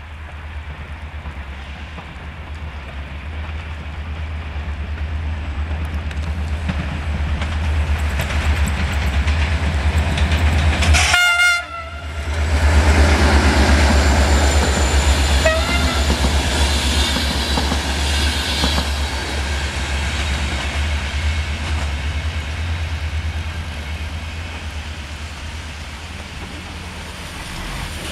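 A GM-engined CFR Class 65 'Jimmy' diesel-electric locomotive approaches with a heavy diesel rumble that grows louder, then gives a short horn blast about midway. It passes with its passenger coaches, and the sound of the wheels clattering over the rail joints slowly fades as the train pulls away.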